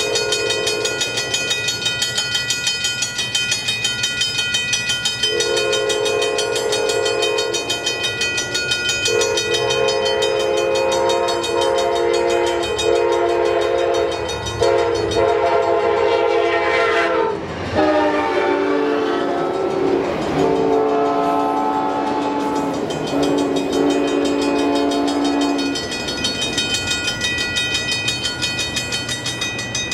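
Grade-crossing bells ring steadily while an approaching train sounds its multi-chime air horn in a series of long blasts and a short one. About halfway through, the horn's chord drops in pitch as the locomotive passes the crossing, and the blasts carry on at the lower pitch before ending a few seconds later.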